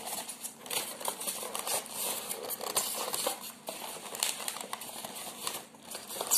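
A cardboard box and small kit parts being handled close up: continuous rustling and scraping with many light clicks and knocks as the pieces are fitted into the box.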